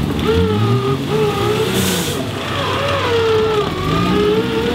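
Competition 4WD's engine revving under load as it is winched out of a mud hole, its pitch rising and falling as the throttle is worked.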